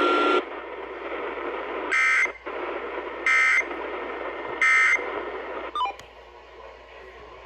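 EAS SAME end-of-message code: three short bursts of rapid two-tone digital data, each about a third of a second long and about a second and a quarter apart, over a radio receiver's hiss. The bursts mark the end of the alert message. A brief click comes near the end.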